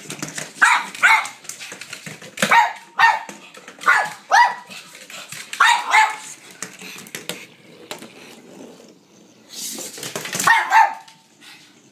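A pug barking in quick pairs, about ten short barks in all, with sharp clicks between them, while she plays with a battery-operated Weasel Ball.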